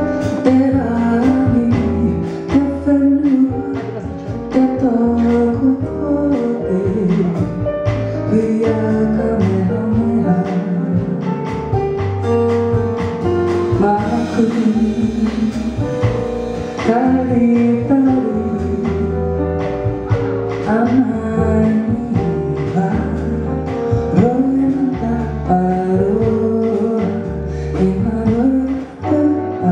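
A live jazz quartet: a woman sings Te Reo Māori lyrics at the microphone over drums, keyboard and a plucked string line.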